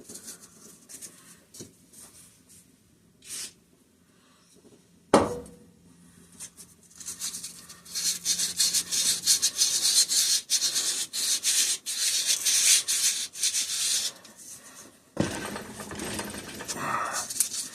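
Sandpaper worked by hand back and forth over the outward side of the snap ring groove on a Kohler opposed-twin crankshaft: a rapid rasping scrape lasting several seconds. A sharp knock comes a few seconds before the sanding and another as it stops.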